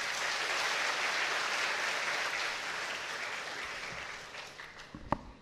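Large audience applauding, the clapping dying away over the last couple of seconds, with a single sharp knock near the end.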